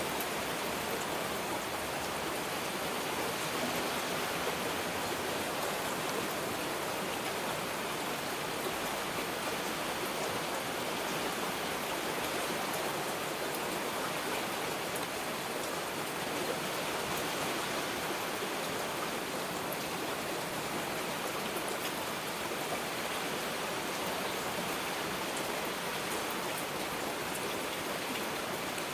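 Heavy rain falling steadily: a dense, even hiss of drops with faint individual patters, with no thunder.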